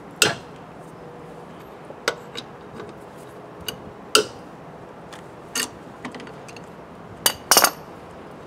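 Steel wheel brace clinking on the wheel nuts as the nuts of a steel car wheel are loosened: a series of sharp metallic clinks, about six or seven, the loudest just after the start and a quick cluster near the end.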